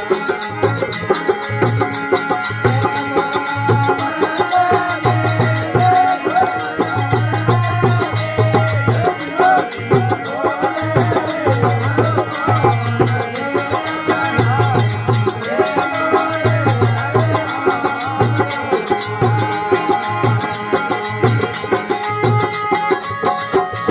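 Rajasthani folk devotional music: a wavering, ornamented melody over a steady, repeating hand-drum beat.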